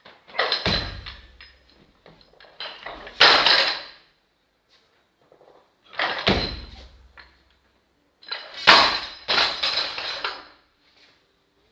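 Loaded barbell with rubber bumper plates being snatched and brought down to the floor: four separate bursts of heavy thuds with the clank and rattle of the bar and plates, the two deepest thuds at about a second in and near the middle.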